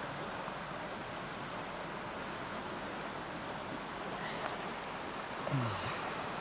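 Steady rush of a fast-flowing river. A brief low voice sound falls in pitch near the end.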